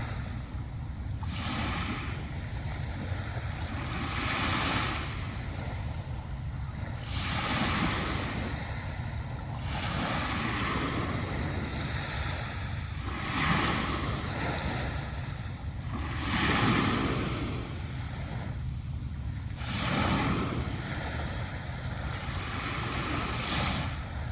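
Sea waves breaking and washing up on a sandy beach, a fresh surge every two to four seconds over a steady low rumble.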